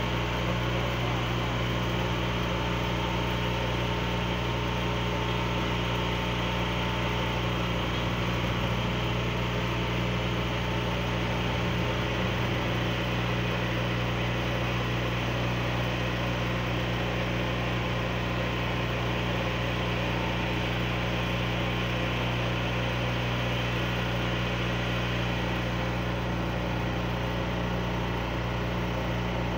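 An engine idling steadily: a constant low hum that holds the same speed throughout.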